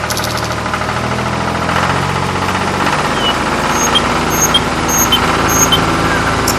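An engine running steadily at idle-like speed. From about halfway, short high chirps repeat roughly twice a second over it.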